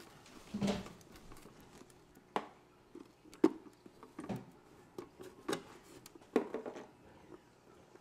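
Irregular light knocks and clicks of a clear plastic coffee-maker water reservoir being handled on a stone countertop while a soldering iron is worked over its crack, the sharpest knock about halfway through.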